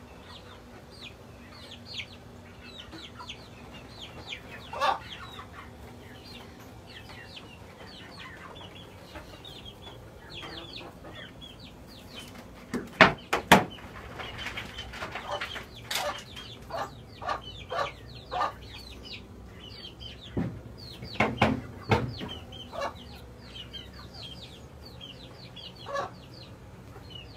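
Baby chicks peeping over and over in short, high, falling notes. A few loud sharp knocks come around the middle.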